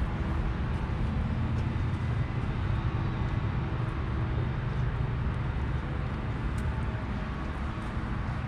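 City street ambience dominated by a steady low rumble of road traffic.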